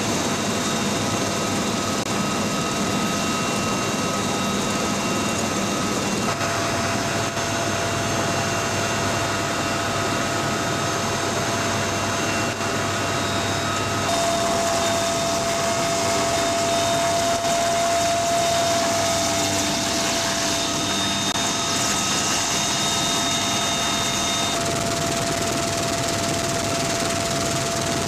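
Military helicopter's turbine engines and rotor running steadily, a dense noise with a constant high whine.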